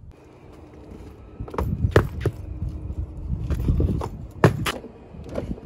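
Wheeled luggage bags being hauled out of a car trunk onto pavement: scraping and rumbling, with several sharp knocks and clunks as the bags hit and are handled.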